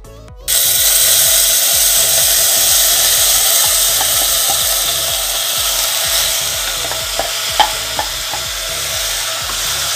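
Rice tipped into hot ghee in a pressure cooker, setting off a loud, steady sizzle about half a second in that eases slightly, with a few crackling pops.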